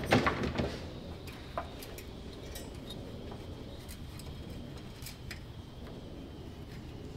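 Scattered light clinks and taps as a battery cable is fed through a lawn tractor's steel frame channel by hand, the cable and its terminal knocking against the metal.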